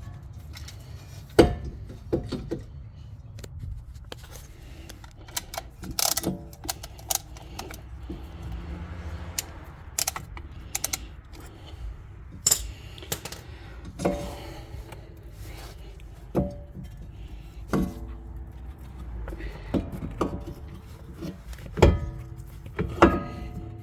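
Irregular metal clicks and clanks from a ratcheting brake caliper compression tool being worked and handled. Several of the knocks ring briefly.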